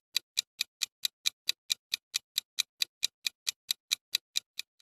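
Clock-style countdown timer ticking, a steady run of sharp ticks about four and a half a second, the last few fading away near the end.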